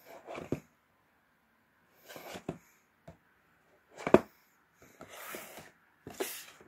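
Small cardboard figure box being handled and turned over in the hand: six short scraping, rustling bursts, the loudest a sharp knock about four seconds in.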